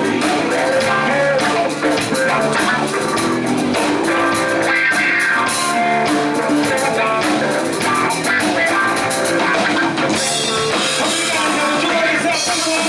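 Live band playing an instrumental passage with electric guitar and drum kit, rock-flavoured, loud and steady.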